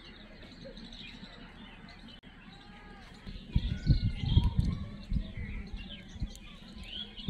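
Small birds chirping repeatedly, many short quick calls overlapping. A low rumbling noise rises about three and a half seconds in and lasts a second or so, the loudest thing heard, with a shorter one near the end.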